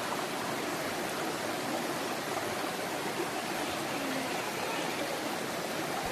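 Steady rush of stream water flowing over rocks, an even hiss without a break.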